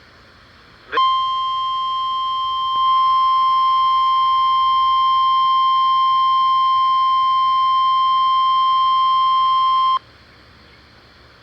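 NOAA Weather Radio 1050 Hz warning alarm tone, sounded as a test of the warning device: one steady, loud, high beep about nine seconds long that gets louder a couple of seconds in and cuts off suddenly.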